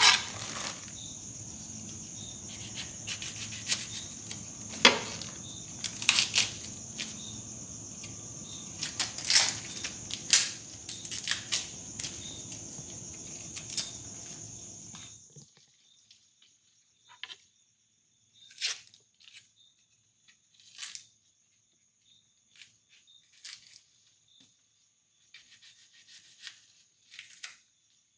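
Kitchen tap running into a stainless steel sink while scallion and herb sprigs are rinsed and handled, with frequent crackling and tearing of the stalks. The water shuts off abruptly about halfway through, leaving scattered crackles and clicks of the greens being pulled apart. A steady high-pitched whine sits behind it throughout.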